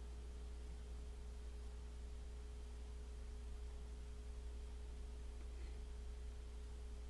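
A faint steady low hum with one steady, unchanging tone held above it.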